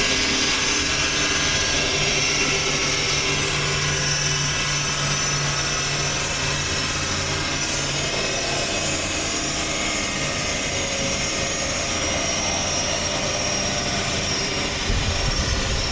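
Steady mechanical drone of dyno-bay machinery, held at an even pitch with a low hum and no revving. A deeper rumble comes in near the end.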